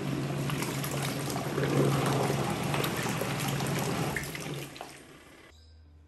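Folding portable washing machine running: water and clothes sloshing and churning in the tub over the steady hum of its small motor. The sound dies away about five seconds in as the machine stops on its own when its timer knob runs down.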